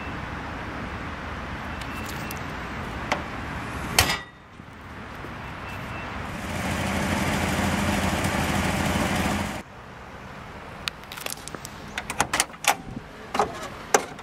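A car's trunk lid slammed shut about four seconds in, over a steady outdoor rushing noise; a louder rush follows and cuts off suddenly. Near the end come a run of sharp metallic clicks and knocks of a car door's latch and handle as the door is worked.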